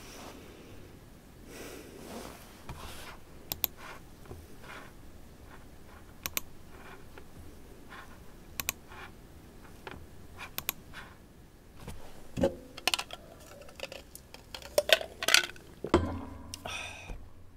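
Scattered sharp clicks of a computer mouse and keyboard at a desk, a few seconds apart at first, then quicker and louder near the end, mixed with a few dull knocks and rustles of movement.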